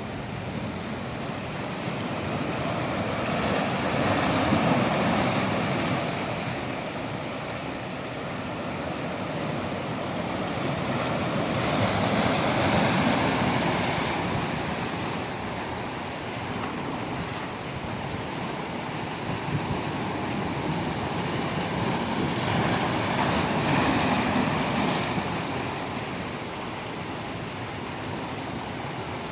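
Ocean waves washing onto the shore: a steady surf hiss that swells and falls back three times as successive waves break and recede.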